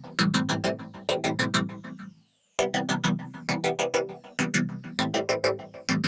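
Electronic background music with a steady beat of sharp, plucked-sounding notes, breaking off briefly about two seconds in before picking up again.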